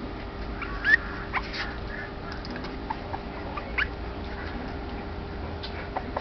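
Corgi puppy whimpering in a few short, high squeaks while it drinks milk, the loudest about a second in and another near four seconds.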